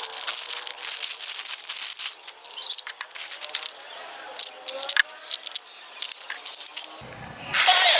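Plastic packaging crinkling and clicking as a toy space gun is unboxed and handled. Near the end a much louder electronic warbling sound starts.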